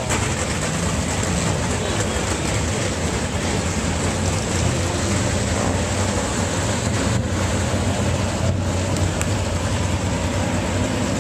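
Engines of several vintage-coupe jalopy race cars running at speed around the track, a loud steady engine noise from the field with no breaks.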